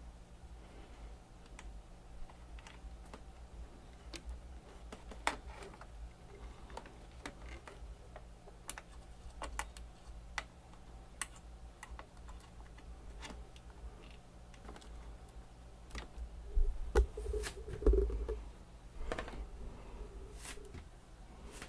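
Scattered light clicks and taps of audio cables and RCA plugs being handled at the back of a stereo amplifier, over a low steady hum. A few louder knocks and bumps come near the end.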